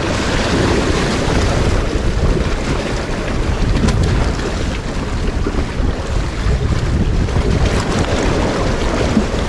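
Wind buffeting the phone's microphone in a steady, heavy rumble, over sea waves washing against the rocks.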